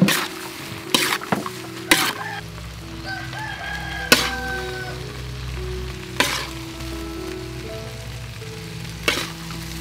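Stir-fry of shrimp, seaweed and green onion sizzling in a wok, with a spatula striking the pan in sharp clanks every one to three seconds.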